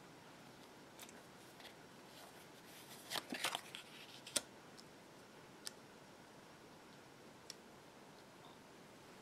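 Tarot cards handled on a wooden tabletop. There are a few faint clicks and slides, then a quick run of crisp card snaps about three seconds in, and a sharp tap as a card is laid down just after four seconds. Two more light taps follow, over a faint steady room hiss.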